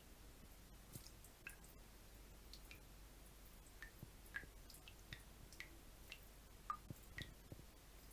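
Water drops falling one at a time, faint irregular plinks about two a second, each a short pitched blip.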